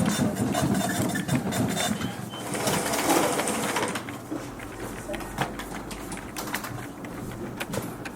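Office ambience: an office machine runs with a fast mechanical chatter under a murmur of voices for the first three or four seconds, then gives way to quieter scattered clicks.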